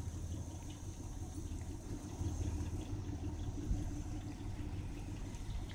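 A vehicle engine idling steadily, a low rumble.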